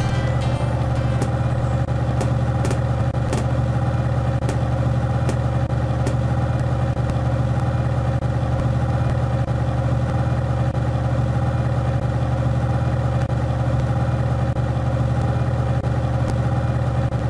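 Engine-idling sound effect for a cartoon armoured truck: a steady, unchanging low engine rumble.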